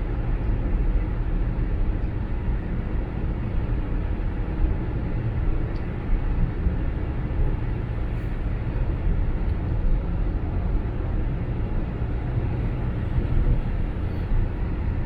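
Steady road and engine noise inside a car cruising on the interstate, a low rumble of tyres and engine with no breaks.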